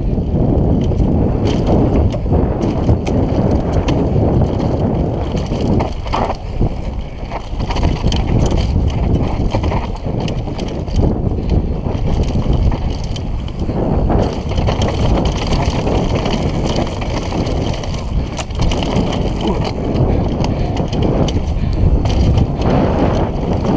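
Downhill mountain bike riding fast down a dirt trail, with loud steady wind buffeting on the camera microphone, tyre noise, and short knocks and rattles from the bike over bumps.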